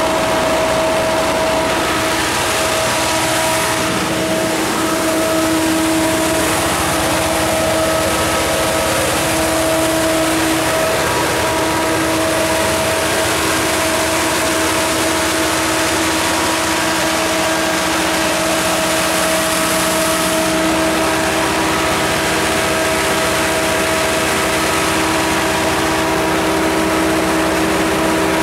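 Multitek MG129 diesel generator set's John Deere 4045HF485 four-cylinder turbo diesel engine running at a steady speed. Its even running noise carries a couple of steady whining tones.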